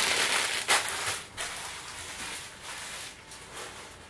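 Ice cubes clattering and settling into an empty plastic storage tub as the last of a bag of ice is poured in, loudest in the first second and a half, then dying away.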